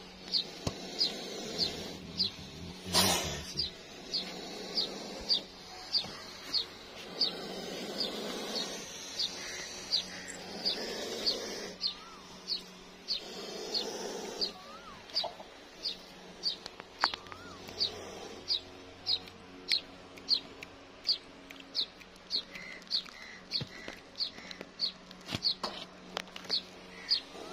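A small bird repeating a single short, high chirp at an even pace, about one and a half to two a second. A single sharp knock comes about three seconds in.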